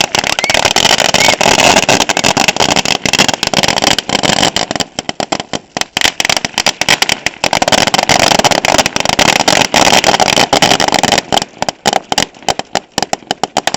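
A string of firecrackers going off in a loud, rapid, dense crackle of bangs, thinning to scattered separate pops near the end before stopping.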